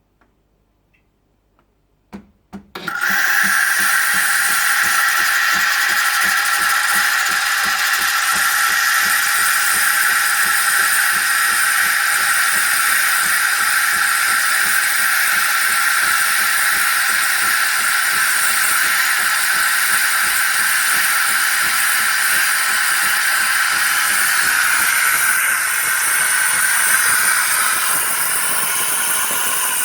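Philips LatteGo 3200 automatic coffee machine making a drink: a few clicks about two seconds in, then a loud, steady hissing whir that continues without a break.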